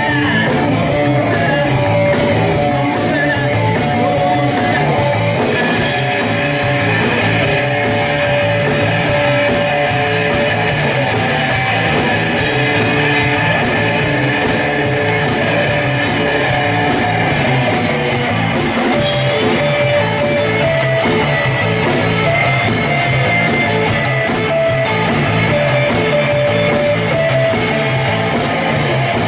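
Live rock band playing: electric guitars over a drum kit, a continuous loud performance with steady drum hits and held guitar notes.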